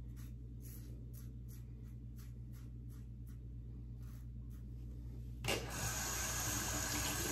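Safety razor with a Nacet blade scraping through lathered stubble in short strokes, about two or three a second. About five and a half seconds in, a tap comes on and water runs steadily into the sink as the razor is rinsed.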